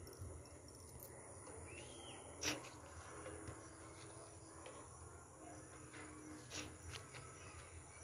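Quiet countryside ambience: a steady high insect drone with a few faint bird chirps, and a single sharp knock about two and a half seconds in.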